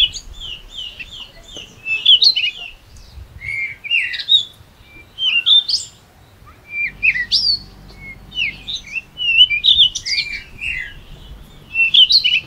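Small birds chirping, a busy run of short, quickly rising and falling high notes that keeps on all the way through, with a faint low hum underneath in the second half.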